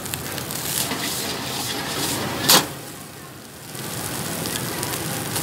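Fried rice sizzling in a wok over a burner: a steady hiss, with a single sharp knock about two and a half seconds in and a brief lull just after.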